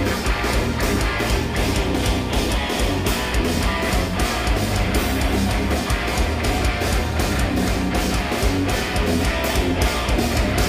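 Instrumental progressive metal band playing live: distorted electric guitars and bass over drums keeping a fast, driving beat, heard loud from the audience.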